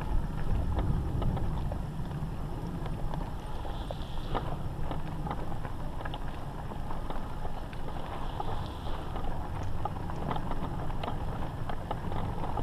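Frontier X5 electric all-terrain wheelchair rolling over a gravel path: a steady low rumble with scattered crackles of grit under the tyres.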